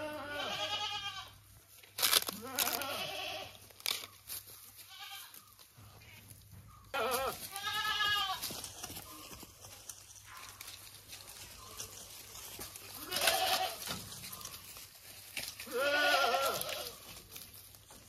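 Goats bleating repeatedly, about six separate calls, with a few sharp clicks in between.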